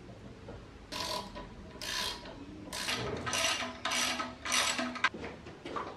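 Hand socket ratchet wrench clicking through about six short strokes, coming quicker after the first two, as bolts fixing a heavy bench vise to its stand are tightened.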